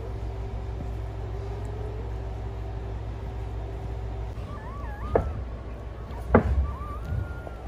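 Newborn German Shepherd puppies squeaking and whining in short, wavering high calls from about four and a half seconds in. Two sharp knocks about a second apart break in, the second one louder, over a steady low hum.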